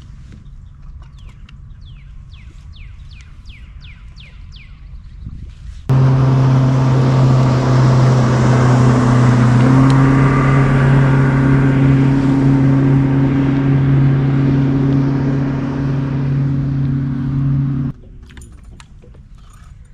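A boat motor running loudly and steadily at an even pitch, starting abruptly about six seconds in and cutting off abruptly near eighteen seconds. Before it, a quiet stretch with a run of short, high, falling chirps.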